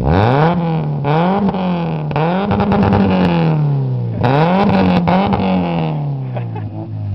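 1997 Toyota Celica's four-cylinder engine revved through its exhaust: the note climbs and falls about four times in quick succession, with the last rev dying away slowly.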